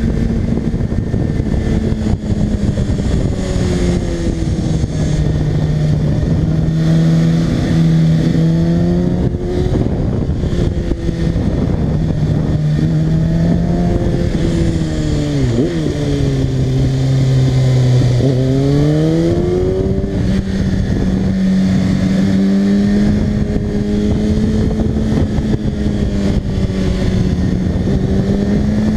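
Kawasaki ZX-6R 636's inline-four engine running at speed, its note falling and rising again and again with the throttle, dropping lowest a little past the middle before climbing sharply back, over steady wind rush.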